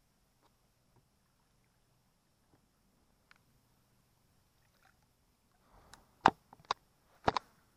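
Mostly quiet with faint small ticks, then a few sharp knocks and clacks in quick succession near the end: gear being handled and bumping against a fishing kayak.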